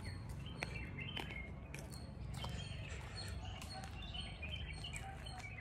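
Forest birds chirping, many short calls scattered through, over a low steady rumble.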